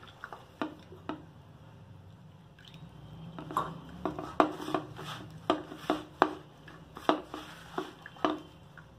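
A hand kneading chopped greens, onion and wheat flour in a stainless steel bowl: repeated knocks and clinks against the steel as the mixture is worked, a few at first, then about two or three a second from a few seconds in. This is pakoda mixture being kneaded with a little sprinkled water.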